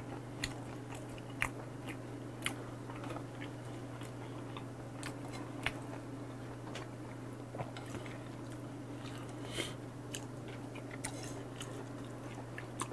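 Close-miked mouth sounds of a person chewing and biting food, with scattered small clicks and smacks, over a steady low hum.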